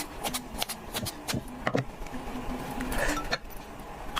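Eating sounds of someone eating salmon: a string of short, sharp clicks and smacks, a few a second.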